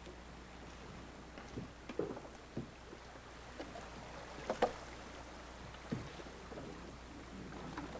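Canoe paddles working in a shallow riffle: a few short splashes and knocks of the paddle strokes, the loudest pair about four and a half seconds in, over a faint steady hiss.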